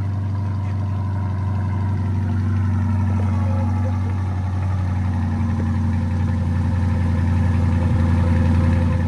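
Steady low mechanical hum of an engine idling, growing slightly louder toward the end.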